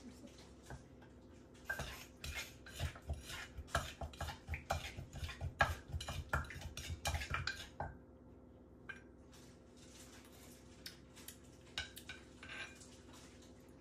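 Wooden pestle knocking in a clay mortar while green papaya salad is pounded and turned with a spoon. There is a quick run of knocks for about six seconds, then only a few scattered clicks.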